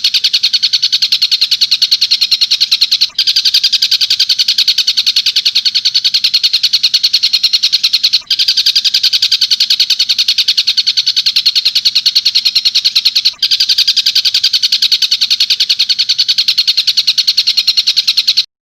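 Recorded tengkek buto call played on a loop: a fast, rapid-fire chatter of evenly repeated shrill notes. It breaks off for an instant roughly every five seconds and cuts off suddenly near the end.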